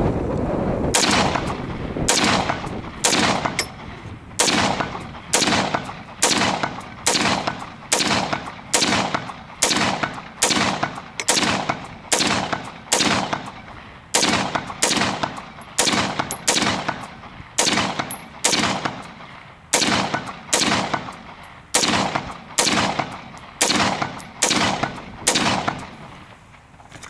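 Brand-new Springfield Saint AR-15 in 5.56 fired semi-automatically, shot after shot at about one a second, some 27 rounds in a row. Each shot is a sharp crack that dies away quickly. The rifle runs without a stoppage during its function test.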